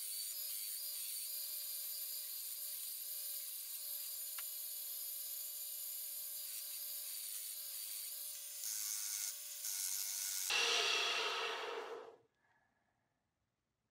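Electric grinder running steadily with a high whine while a steel hammer head is polished on it. About ten seconds in comes a louder, coarser rushing noise for about two seconds, then the sound cuts off abruptly.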